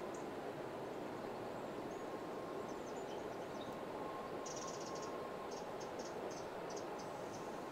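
Outdoor woodland ambience: a steady rushing background noise with faint, short high-pitched chirps that repeat about one or two times a second from about halfway in.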